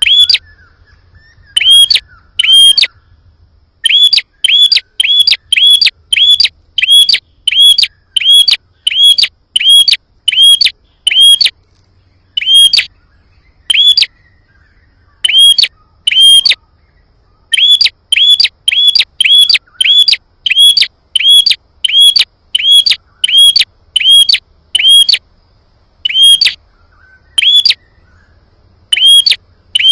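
Prenjak (prinia) calling loudly: a rapid series of sharp, repeated chip notes, about two a second, in runs broken by brief pauses. It is a lure recording used to make wild prenjak answer.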